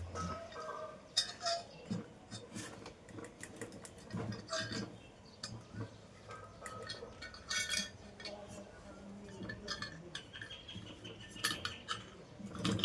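Irregular small metallic clinks and knocks of hand tools and metal parts as a nut is turned to press a 6201 bearing out of a ceiling fan's motor housing.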